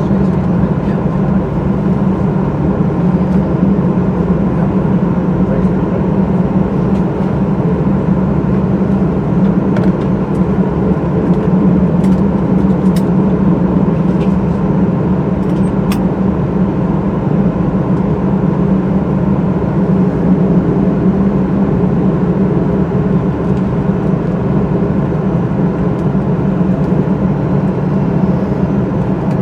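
Steady drone of a Boeing 737-800's CFM56-7B engines running at ground idle, heard from inside the passenger cabin, with the low hum of the cabin air system. A few faint clicks come about halfway through.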